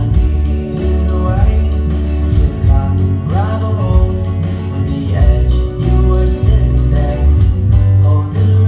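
Acoustic guitar with a capo, played as a continuous tune of picked notes and chords.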